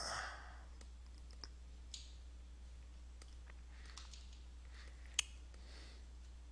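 A few faint computer clicks from mouse and keyboard, spaced irregularly, with the sharpest one about five seconds in, over a steady low electrical hum.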